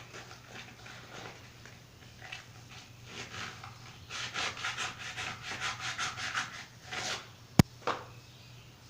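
Fast back-and-forth rubbing strokes, about five a second, as grease is scrubbed off the field magnets of an old 6-volt Delco-Remy generator. A single sharp click comes about seven and a half seconds in and is the loudest sound.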